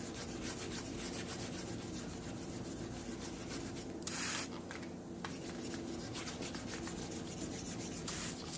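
Wet sanding of freshly cleared paint with 600-grit paper on a sanding board: steady back-and-forth rubbing. Two short hisses of water sprayed onto the panel come about four seconds in and near the end.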